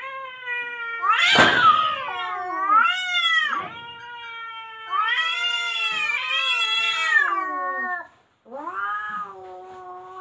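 Two cats caterwauling at each other in an aggressive standoff: long, wavering yowls that rise and fall in pitch, with a short harsh hiss about a second and a half in. The yowling breaks off briefly near the end, then starts again.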